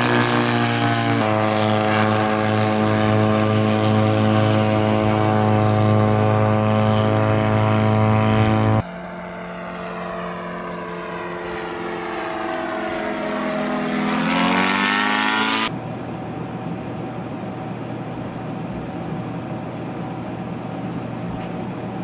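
The piston engine and propeller of an RQ-101 Songgolmae reconnaissance drone running loud and steady at high power on the runway. After a cut, the engine is heard in flight, quieter, its pitch falling and then climbing steeply. About 16 seconds in it gives way to a steady, duller noise with no engine note.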